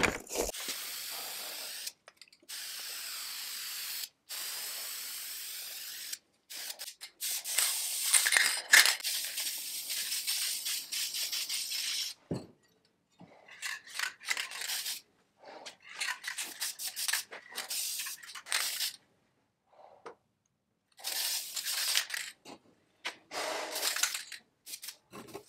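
Aerosol spray can of black paint hissing as it coats a cast iron lathe seat: three steady sprays of about two seconds each, then shorter, broken bursts with pauses between.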